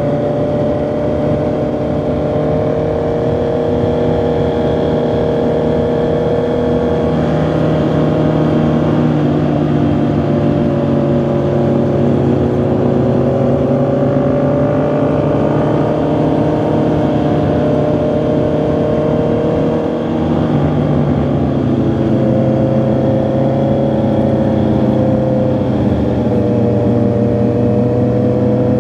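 Honda CB650R's inline-four engine and exhaust running under way at a steady cruise, its note rising and falling gently with the throttle. There is a brief dip in level about twenty seconds in.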